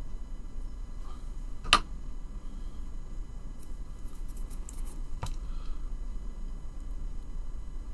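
Small model-kit parts and tools handled at a workbench: a sharp click about a second and a half in and another near five seconds, with faint ticks between, over a steady low hum.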